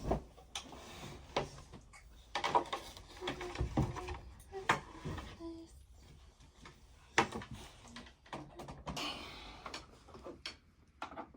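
Scattered knocks, clicks and rustling of a mini fridge and its power cord being handled and plugged into a wall outlet.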